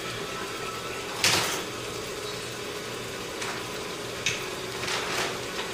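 Food packaging handled off camera: one sharp scraping rasp about a second in, then a few lighter clicks and rustles, over a steady low hum.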